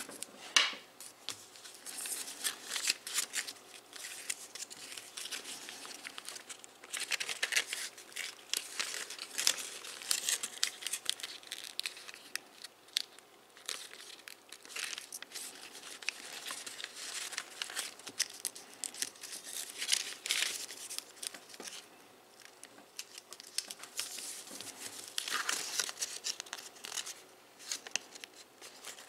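Origami paper crinkling and rustling as it is folded and creased by hand, in irregular spells of crackling.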